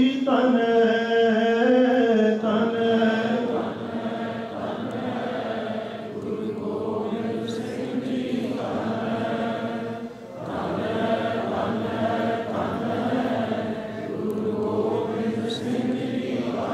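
Congregation chanting together in unison, a slow devotional chant of many voices holding long notes. It dips briefly about ten seconds in and then resumes.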